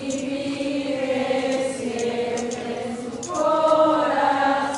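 A group of people singing a slow religious hymn together in long held notes; about three seconds in the melody steps up and grows louder.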